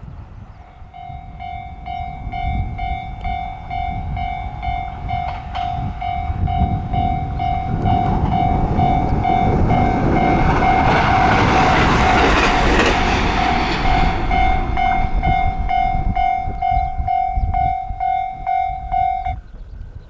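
Japanese railway level-crossing alarm bell ringing in an even pulse, about two strikes a second, as a JR West 521 series electric train passes close by, its wheel and running noise building to the loudest point about halfway through. The bell cuts off near the end.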